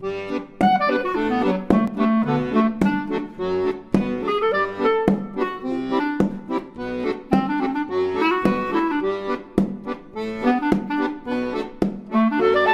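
Upbeat instrumental outro music with a melody over a steady beat.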